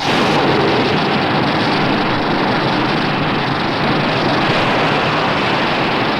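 Loud, steady rushing noise with no distinct tones, like a jet blast or rushing flame, cutting in suddenly at the start and holding level throughout.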